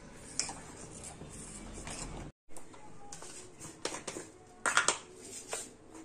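Metal spoon stirring milk in a stainless steel saucepan as it thickens into rabri, scraping and clinking against the pan. A short gap comes a little past two seconds, and a cluster of sharp clinks about five seconds in are the loudest sounds.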